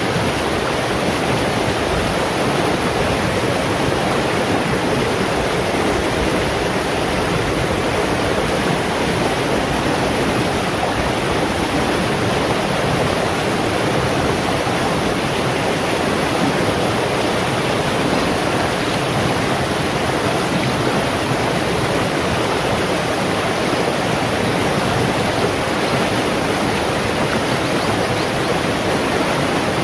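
Shallow rocky stream rushing and splashing over boulders, a steady, even rush of water.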